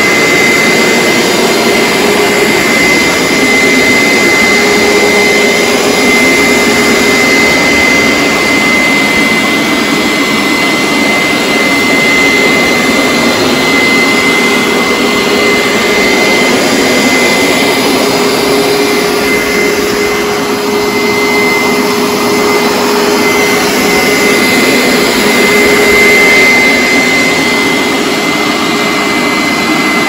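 Hoover SteamVac Dual V upright carpet cleaner running steadily as it is moved over a rug, its motor giving a steady high whine over a loud rushing noise.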